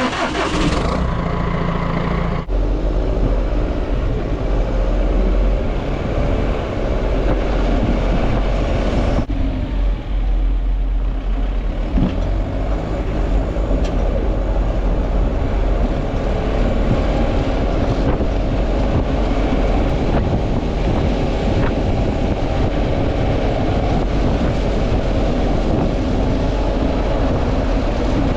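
Tractor engine running steadily under load, with abrupt changes about two seconds and nine seconds in.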